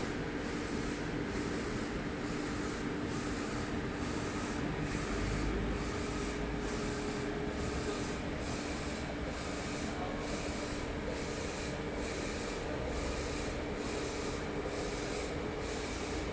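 DTF printer printing: the print-head carriage sweeps back and forth about once a second over a steady motor hum.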